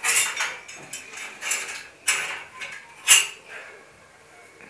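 Four sharp metallic clanks with a brief ring, from the weights and metal parts of a cable pulldown machine being handled; the loudest comes about three seconds in.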